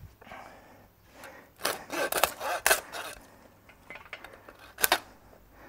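Hand saw cutting through lamb rib bones: a quick run of about six rasping strokes about a second and a half in, then one more stroke near the end.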